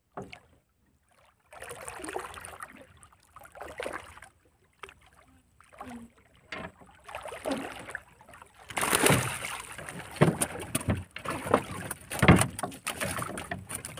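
Irregular water splashing and sharp knocks against a small wooden boat while a fishing handline is hauled in by hand, the sounds coming thicker and louder in the second half.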